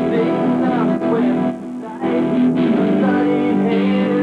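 Acoustic guitar playing chords in a jam, with a short drop in loudness about one and a half seconds in.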